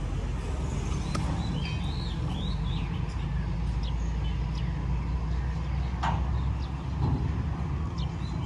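Birds chirping in short rising-and-falling calls over a steady low rumble, with a couple of faint clicks.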